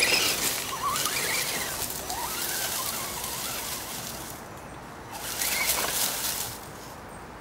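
Electric motor of an Axial RC 4x4 scale jeep whining up and down in pitch with the throttle while its tyres crunch over dry leaves and twigs. The sound fades over the first four seconds, and a second burst of driving noise comes about five seconds in.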